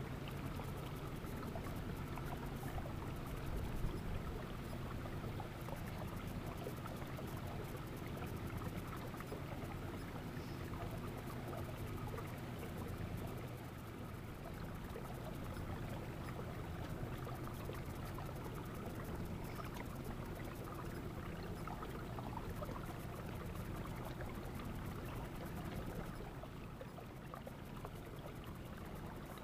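A bass boat's motor running steadily at low speed, with water washing along the hull; it grows a little quieter near the end.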